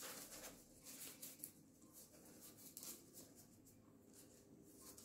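Near silence, with faint, soft rustles of baking parchment and dough as hands shape dough balls on a baking tray; the rustles are a little more frequent in the first second.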